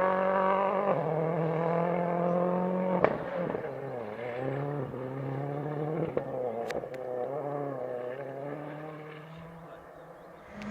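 Rally car engine under hard acceleration, its pitch dropping at gear changes about one and three seconds in, then rising and falling with the throttle as the car drives away and fades into the distance.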